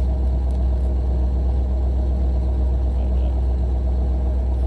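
An engine idling: a steady low rumble that holds even throughout.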